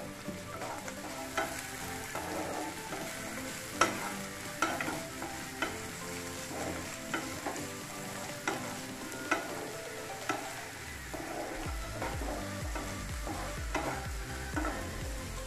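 Chopped vegetables sizzling in hot oil in a kadai while being stirred and tossed, with sharp clicks of the utensil against the pan every second or so.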